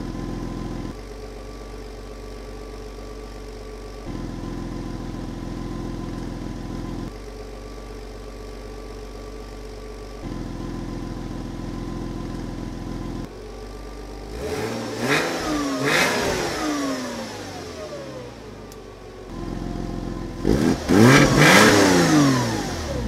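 Porsche Boxster 986's flat-six engine heard at the tailpipe through a muffler with the Crios mod, a hole of about 15.5 mm punched into it. The engine idles, then is revved in short blips twice: once about two-thirds of the way through, and again, louder, near the end.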